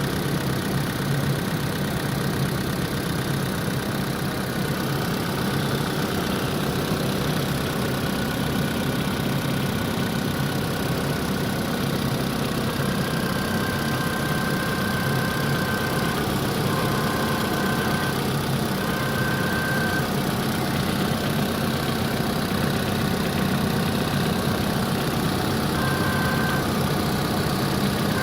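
Opel Z18XER 1.8-litre four-cylinder petrol engine idling steadily. A thin high whistle comes and goes several times in the second half: the extraneous noise the owner is trying to trace.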